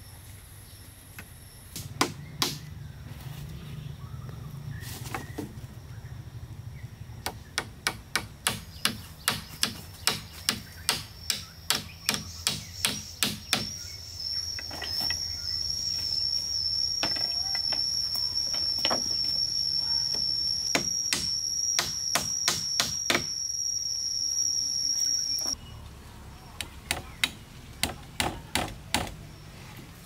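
A hatchet striking wood again and again, about one to two blows a second, with a short break near the end. A steady high-pitched insect buzz runs through the middle and stops suddenly.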